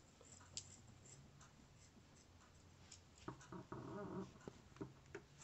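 Near silence, with faint clicks and snips of scissors cutting through sweater fabric. A faint, muffled vocal sound lasts about a second, a little past three seconds in.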